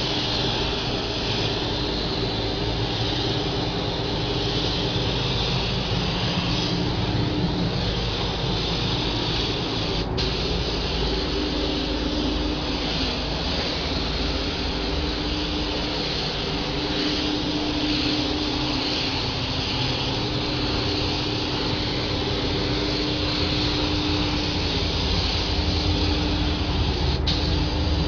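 Compressed-air paint spray gun hissing steadily as a car body is sprayed, over the low rumble of a paint booth's ventilation, with a low hum that comes and goes.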